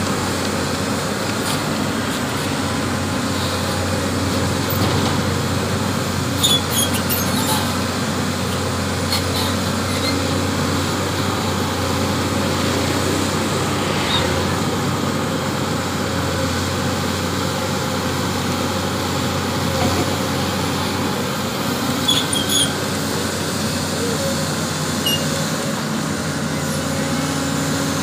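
Pindad Excava 200 hydraulic excavator's diesel engine running steadily under load as the machine digs and piles wet mud with its bucket, with a few brief clicks from the working arm.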